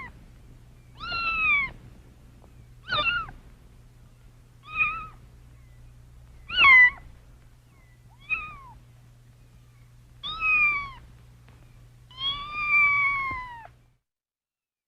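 Pet cat meowing over and over, about seven separate meows one to two seconds apart, each falling in pitch at the end, the last one drawn out to about a second and a half. A faint steady low hum runs beneath until the sound stops near the end.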